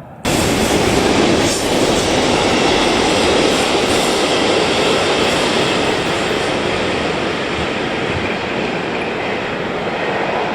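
Freight train passing close on the mountain line: steady loud rumble and rattle of wheels on rails, with some wheel squeal. The sound starts abruptly just after the start.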